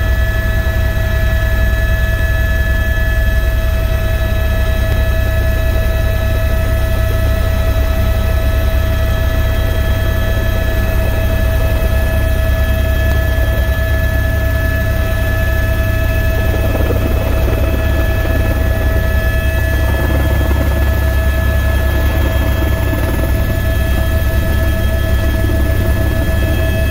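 Helicopter engine and rotor heard from inside the cabin: a steady low rumble with a steady high whine over it. Past the middle the sound grows rougher as the helicopter comes in and sets down on the pad.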